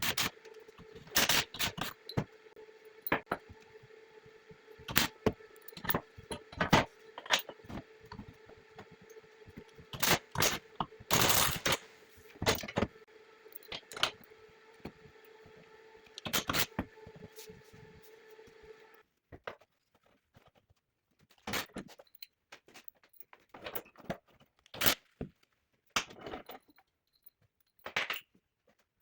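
Irregular metallic clinks, knocks and scrapes of metal parts being handled, over a faint steady hum that cuts off about two-thirds of the way through.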